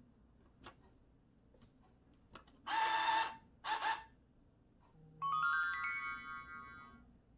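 A banknote acceptor whirring in two short bursts as it draws in a bill, then a smartphone alert chime of quickly rising notes that rings for about two seconds and fades: the remote-control app signalling that a coin signal was detected for batting cage 1.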